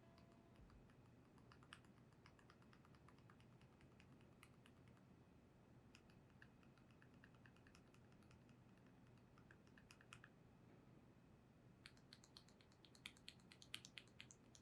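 Faint typing on a Keydous NJ68 mechanical keyboard fitted with linear switches: scattered keystrokes, turning into a quicker run of louder strokes near the end.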